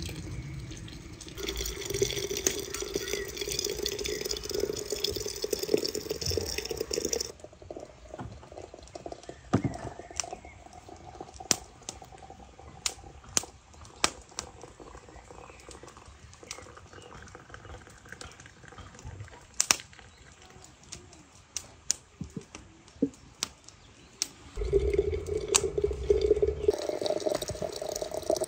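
Water running from a samovar's tap into a glass jar of apricots and sugar, splashing and filling it in two long pours, with scattered sharp ticks in the quieter stretch between. Near the end the pour takes on a steady tone, higher than before, as the jar fills.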